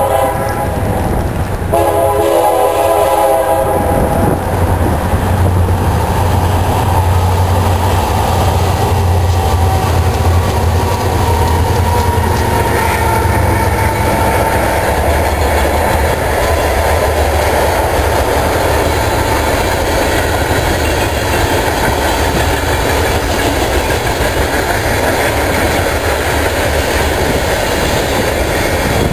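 Diesel locomotive air horn sounding two blasts that end about three seconds in. The locomotives' engines then run loud and low as they pass, followed by a long string of freight cars rolling by.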